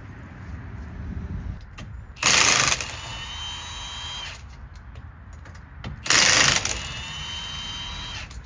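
Cordless impact wrench run twice on the rear hub's nuts. Each time it gives a short, loud burst of hammering, then a couple of seconds of quieter steady motor whine.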